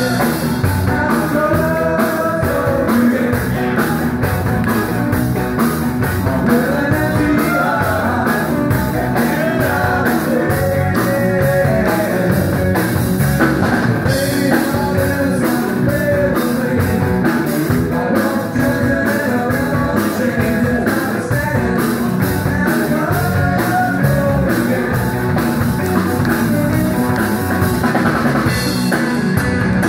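Rock band playing live: a male singer over a drum kit, electric guitars and bass guitar, with a steady drum beat.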